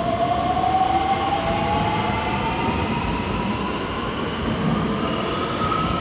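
Electric multiple-unit train pulling out of the platform. Its traction motors give a whine that climbs steadily in pitch as it gathers speed, over a steady rumble of wheels on rail.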